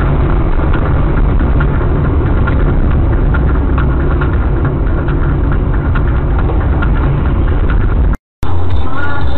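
Vehicle engine and road rumble picked up by a dashboard camera, low and steady with faint ticks; it cuts off abruptly about eight seconds in.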